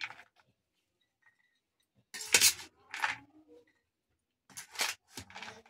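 Steel spoon scraping and scooping moist salad in a stainless-steel bowl and tipping it into a glass dish: about four short scrapes, the first about two seconds in.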